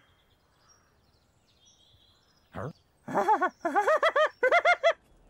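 Cartoon sheepdog's wordless mumbling: a quick run of rising-and-falling vocal syllables starting about three seconds in, after a near-silent stretch with faint bird chirps.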